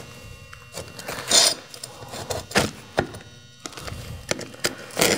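Utility knife scoring an asphalt shingle along a speed square: a few short scraping strokes, with some sharp clicks in between.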